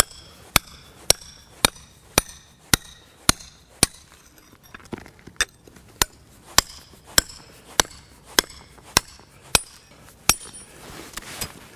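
Hammer striking a cold chisel set in an angle-grinder cut in a stone block, about two blows a second, each with a short metallic ring. The chisel is driving into the scored groove to split the stone.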